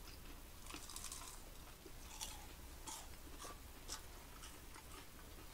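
Faint chewing and crunching of fried churros, with a few scattered crisp crunches.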